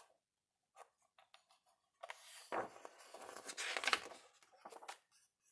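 A large glossy page of a picture book turned by hand: faint paper rustling and sliding for about three seconds from two seconds in, after a few small ticks, ending in a couple of soft clicks as the page settles.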